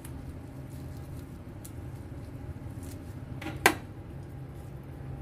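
One sharp clink of a stainless steel mixing bowl being handled, about three and a half seconds in, over a steady low hum with a few faint small clicks.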